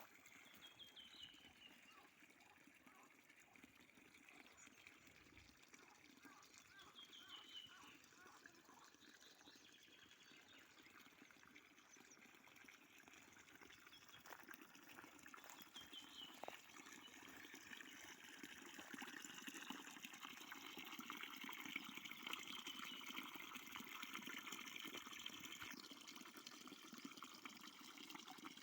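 Faint river water trickling and flowing, growing a little louder in the second half, with a few short falling bird chirps now and then.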